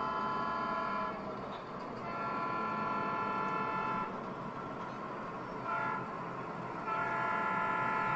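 A sound-equipped HO scale model diesel locomotive sounding its multi-chime horn in the grade-crossing pattern: the end of a long blast, another long blast, a short toot, then a final long blast.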